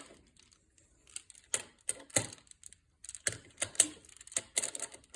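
Magna-Tiles plastic magnetic building tiles clicking and clacking against each other as they are handled and snapped together: irregular sharp clicks, starting about a second in.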